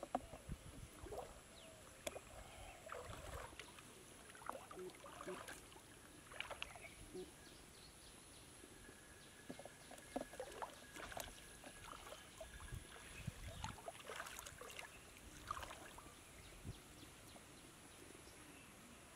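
Faint, irregular small splashes and drips of water as a wet fishing net is handled and lifted out of shallow water, with water running off it into a plastic tub.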